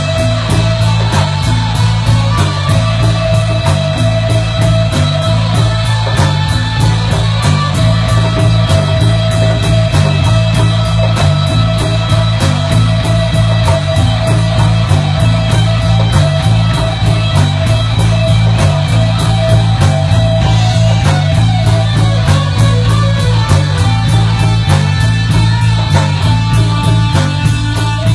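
Rock music with guitar, bass and drum kit playing a fast, steady beat.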